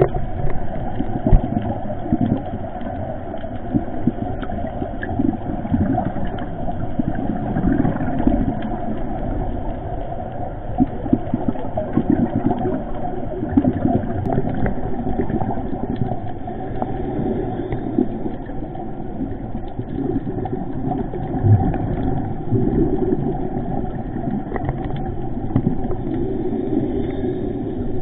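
Steady muffled underwater rumble picked up by an action camera's microphone, with faint scattered clicks and no clear rhythm.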